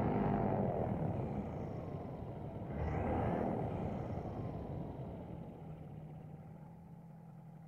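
A propeller engine running, swelling as it passes about three seconds in, then fading away to near silence.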